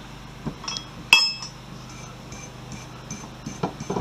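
Metal hand tools clinking against the steel coilover strut body while its threads are cleaned: one sharp, ringing clink about a second in, then a run of light metallic ticks.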